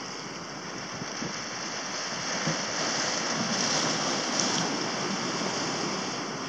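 Sea water lapping close by, with wind on the microphone: a steady rushing noise that swells slightly in the middle.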